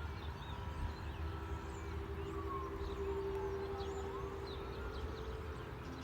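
Sirens sounding: a steady tone under a slow wail that falls and rises again, with birds chirping.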